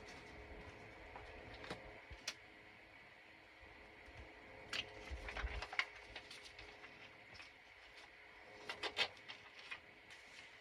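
Paper and small crafting pieces being handled on a work table: faint rustling with scattered light taps and clicks, in small clusters about two, five and nine seconds in.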